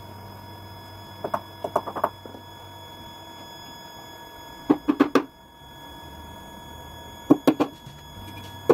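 Claw hammer driving nails into a plywood chair frame: short runs of quick, sharp strikes, a light run early on, heavier blows about halfway, another run past seven seconds and a single blow at the end.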